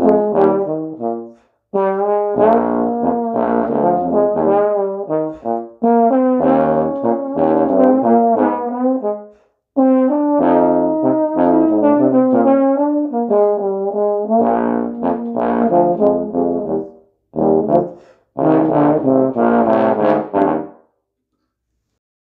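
Two bass trombones playing a duet, two interlocking parts moving through many short notes in phrases with brief breaks. The music stops about a second and a half before the end.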